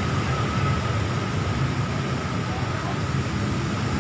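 Outdoor crowd ambience: indistinct chatter of many people over a steady low rumble.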